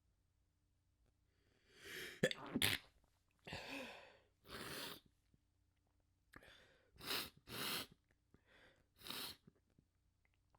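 A person sneezing several times in a row, in short breathy bursts with pauses between. The sharpest and loudest sneeze comes about two seconds in.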